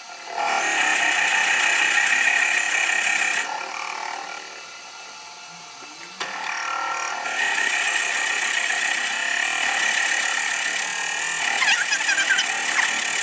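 A 30 mm Forstner bit in the lathe's tailstock boring into a spinning horse chestnut blank, with a steady high whine. It cuts for about three seconds, goes quieter for nearly three seconds, then cuts again for the rest.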